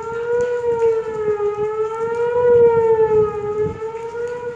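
Outdoor tornado warning siren sounding a steady wail, its pitch wavering gently up and down. It is set off for a severe thunderstorm warning.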